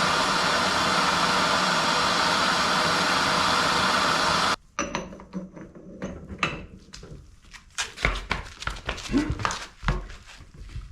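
A torch flame heating a seized nut gives a steady, loud rushing hiss that shuts off abruptly about four and a half seconds in. Metal tools then clank and knock, with a few low thumps near the end as the breaker bar is set on the heated nut.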